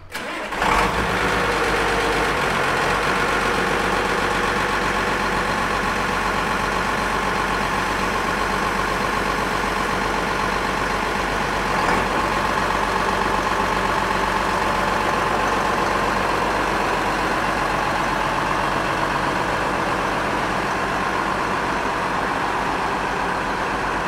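Case International 7130 tractor's six-cylinder diesel engine starting about half a second in, then running steadily at idle.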